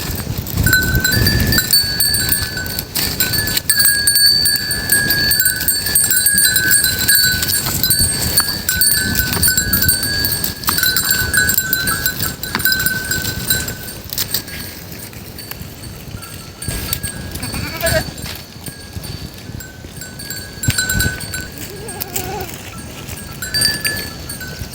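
Bells worn by free-range goats ringing and clanking without a break as the herd moves and grazes. A couple of short goat bleats come in after about two thirds of the way through.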